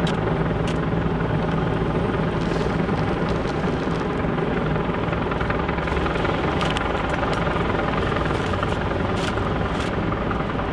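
A helicopter running steadily overhead, its rotor and engine a continuous loud drone, with a few sharp clicks or knocks scattered through it.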